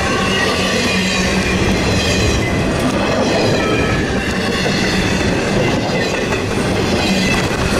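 Intermodal freight train of trailers on flatcars passing close at speed. The wheels on the rails and the rattling cars make a loud, steady rumble, with faint high squealing tones from the wheels.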